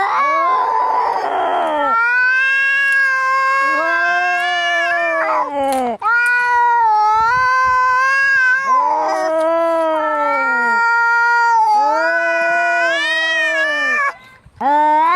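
Cats fighting: long, wavering, overlapping yowls rising and falling in pitch, with a hiss about a second in and a brief break near the end.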